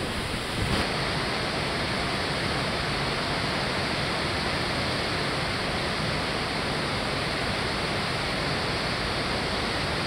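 Water pouring over a low concrete river dam: a steady, even rush of falling water. Wind rumbles on the microphone for the first second, then the sound changes abruptly to the plain, even rush.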